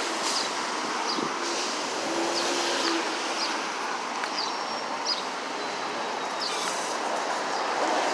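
City street traffic noise: a steady wash of passing vehicles, with a few short high chirps scattered through it.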